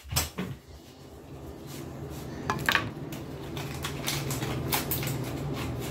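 Sharp plastic clicks and knocks as a toothbrush and a clear plastic cup are handled on a counter, over a steady low hum that builds up after the first second.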